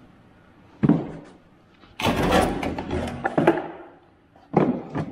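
A sharp knock, then about a second and a half of loud clattering and banging as objects fall and rattle, then another sharp knock.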